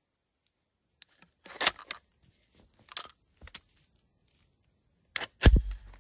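Metallic clicks and clacks of a Cobray Terminator 12-gauge shotgun being handled, a few sharp knocks spread apart, then a heavier thump with a low thud near the end.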